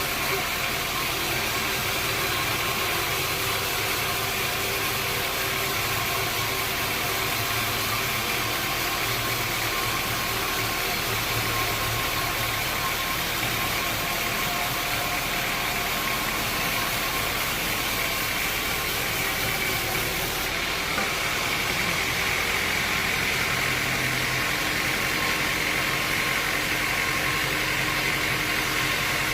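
Sawmill machinery running steadily: a constant motor or engine hum with a few steady tones over a hiss, changing slightly about 21 seconds in.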